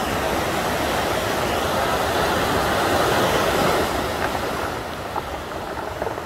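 Muddy floodwater rushing and churning down a swollen stream channel, a steady loud rush of water that eases slightly near the end.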